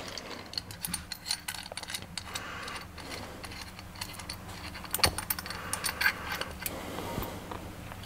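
Light metallic clicks and clinks as a seat belt mounting bracket, bolts and washers are handled, with a sharper knock about five seconds in.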